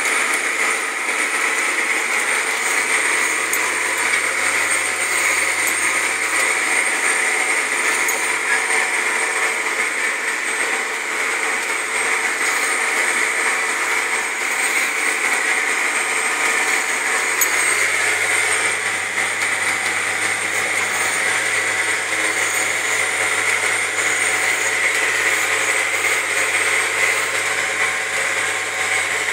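Tractor engine running steadily under load while pulling a disc, heard from inside the cab, with a steady high whine over the engine.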